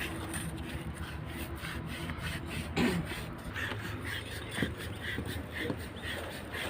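Rapid, repeated rubbing strokes of hand-abrading a cable's insulation, roughening it for termination, with a single knock about three seconds in.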